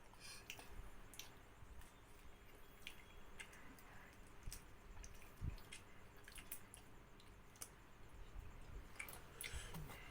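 Faint eating sounds: scattered small clicks and soft wet chewing, with a single low thump about five and a half seconds in.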